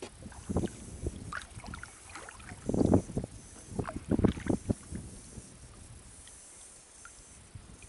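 Kayak paddle strokes: the blade dipping and splashing in the water in a run of irregular splashes over the first five seconds, the loudest around the middle, then only a faint steady hiss.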